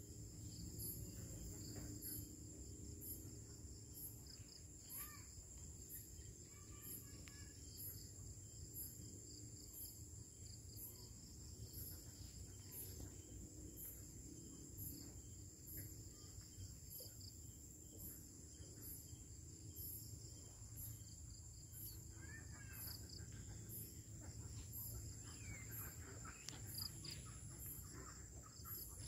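Night insects such as crickets trilling in a steady high tone, with a sharper chirp repeating about once a second. A few short calls break in near the end.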